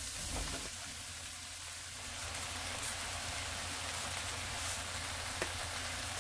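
Sliced onion and green onion frying in oil in a non-stick pan, a steady sizzle with a few faint pops and one sharper pop about five seconds in.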